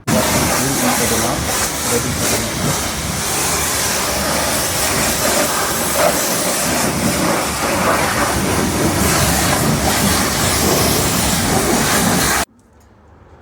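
Pressure washer spraying water, a loud steady hissing rush that starts abruptly and cuts off suddenly about twelve seconds in.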